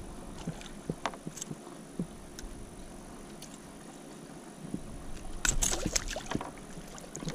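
A hooked fish held at the surface in a lip grip thrashes and splashes water for about a second, starting a little over five seconds in. Before that there are only light scattered clicks and knocks.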